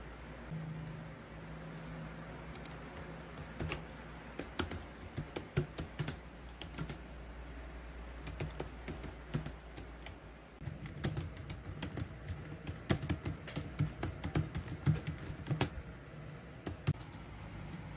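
Typing on a compact external computer keyboard: irregular key clicks in quick runs, with short pauses between them.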